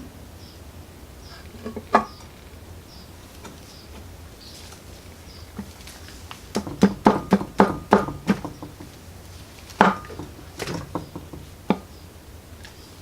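Metal clutch cover of a Chinese 250cc ATV engine knocking and clattering against the crankcase as it is fitted onto its new gasket: a single knock, then a quick run of knocks in the middle and a few more near the end.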